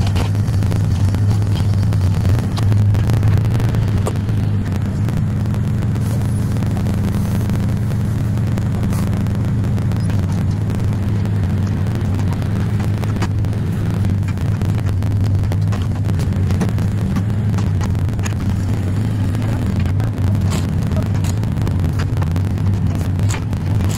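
Mini excavator's diesel engine running steadily as it moves logs, with a few scattered knocks.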